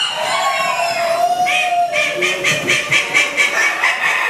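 Bantam chickens in show pens: a long rooster crow through the first two seconds, then a rapid run of clucks, about four or five a second, over the overlapping calls of many other birds.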